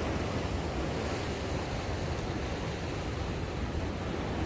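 Steady wash of sea waves against a breakwater, mixed with wind buffeting the microphone as a low rumble.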